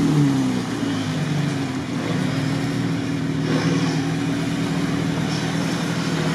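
Engine of the MEGA-UAZ, a modified off-road UAZ truck on large mud tyres, pulling under load as it drives through shallow water toward a steep bank. The revs drop at the start, then hold fairly steady.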